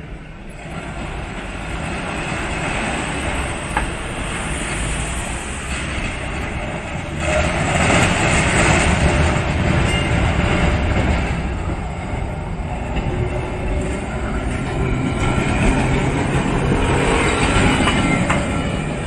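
Vintage Milan Class 1500 "Ventotto" tram rolling over the junction's rails and passing close by, its running noise growing louder from about seven seconds in as it nears. Faint wheel squeal is heard as it takes the curve.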